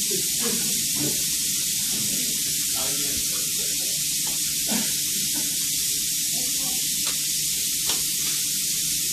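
Tap water running steadily into a sink for hand washing, heard as an even hiss.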